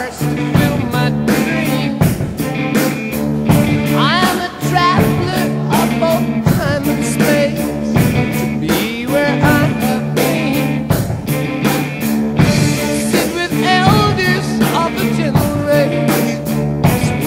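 Rock song with a steady drum beat, guitar and a singing voice.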